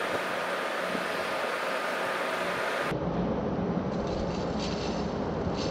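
Steady background noise: an even hiss that changes abruptly about three seconds in to a lower rumble.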